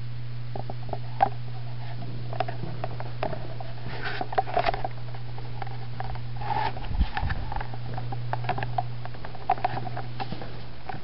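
Footsteps on a hard floor, irregular light taps and clicks, over a steady low hum.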